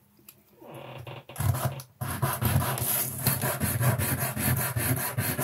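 A small styrene plastic part rubbed back and forth in quick strokes on a sanding pad, smoothing its freshly snapped end. The scraping starts about a second and a half in.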